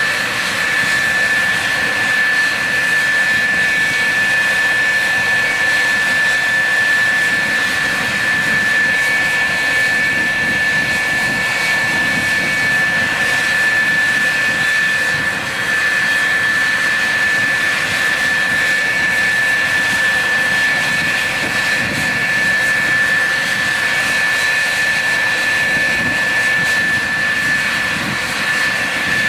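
F-4F Phantom II's J79 turbojet running steadily on the ground: a constant high whine over a steady rushing noise.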